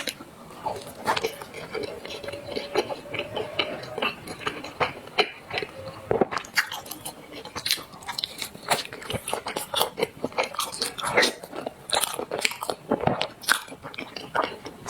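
Close-miked eating: dense, irregular mouth clicks and smacks of biting and chewing black sesame paste.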